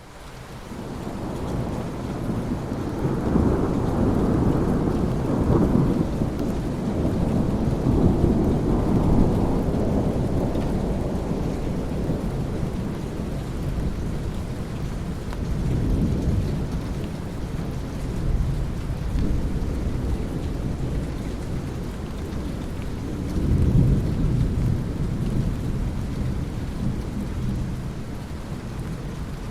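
Thunderstorm: steady rain with rolling thunder, fading in at the start. A long rumble swells and rolls over the first third, with shorter rumbles about halfway and again near the end.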